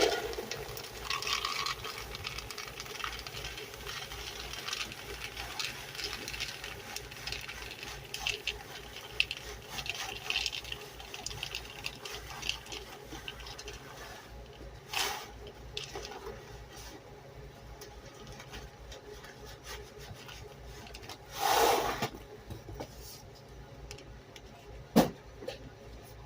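Dry cat kibble being poured into a container, a faint rattling patter of many small pieces, with two louder rustles or knocks later and a sharp click near the end.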